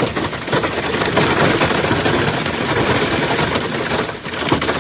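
Hail pelting a hard surface: a loud, dense, rapid clatter of countless small impacts.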